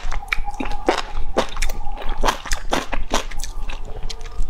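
Close-miked eating of enoki mushrooms in spicy broth: wet chewing and sharp mouth smacks, several a second.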